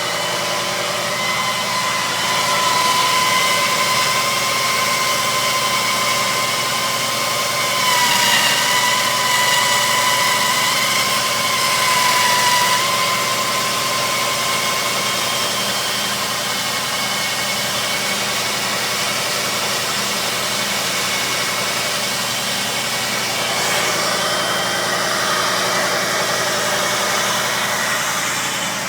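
Jeep Grand Cherokee WJ engine idling with a high-pitched screech over it. The screech is a steady tone that wavers about eight seconds in and fades out after about thirteen seconds, leaving the engine idling.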